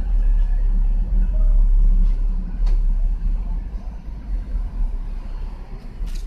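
Low steady rumble, with a few sharp clicks, one about two and a half seconds in and one near the end.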